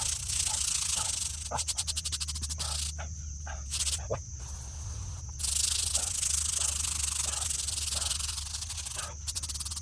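A brush scrubbing the face of a gravestone: rapid back-and-forth strokes with a rasping hiss, a short pause about three seconds in, then steadier scrubbing again.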